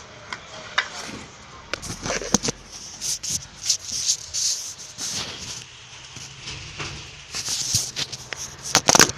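A spatula scraping and rubbing against a fidget spinner in short, scratchy strokes, with a few sharp clicks near the end.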